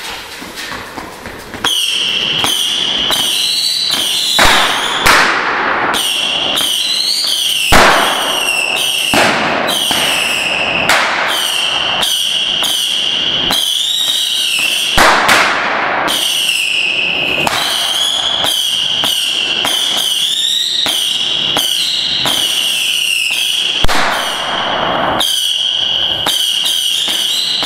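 Saturn missile battery firework firing a rapid stream of small whistling rockets, starting about two seconds in. A nearly continuous high whistle is broken by frequent crackling pops, with a few louder sharp bangs.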